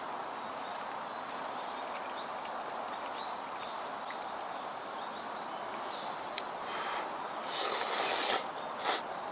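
Cup udon noodles and broth being slurped, in a few loud noisy bursts near the end, over a steady outdoor background with faint high chirps.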